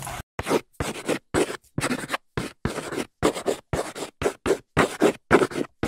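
Chalk writing on a chalkboard: a quick run of short scratchy strokes, about three a second, each cut off cleanly with silence between.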